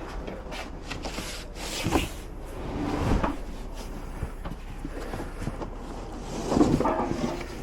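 A few knocks and clunks over a steady low rumble, with single knocks about two and three seconds in and a louder cluster of rattling knocks near the end, like a van's doors and a heavy load being handled.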